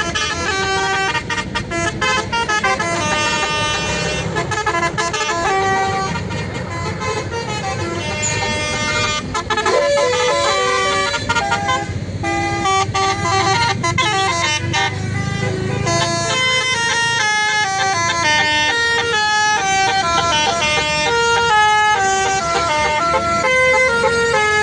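Basuri "telolet" musical bus horn playing a melody of held notes that step up and down in pitch, over a low rumble.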